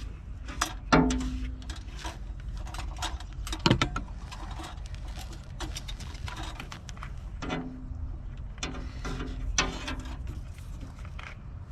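Hand tools and small metal parts being handled: irregular clicks, clinks and knocks, a few clanks ringing briefly, the loudest about a second in and again a few seconds later.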